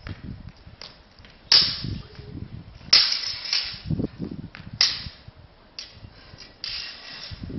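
Broadswords clashing in a staged sword fight: four loud blade strikes, about every one and a half to two seconds, each trailing off briefly, with lighter clicks of the blades between them.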